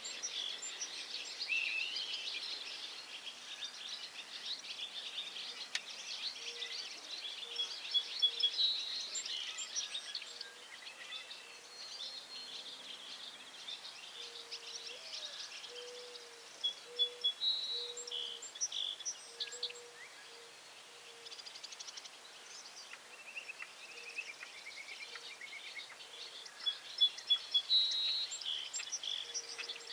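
Wild birds calling and singing outdoors, with clusters of high chirps and trills coming and going. A short low note repeats about once a second through the second half.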